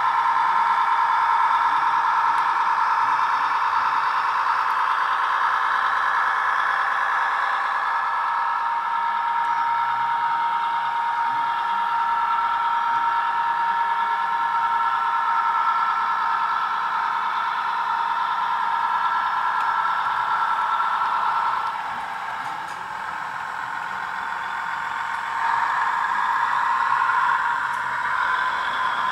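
Sound decoder in a Bachmann class 158 model diesel multiple unit playing its diesel engine and running sound through the small factory-fitted speaker as the model runs. The steady, thin-sounding engine note drops back about three-quarters of the way through and builds up again a few seconds later.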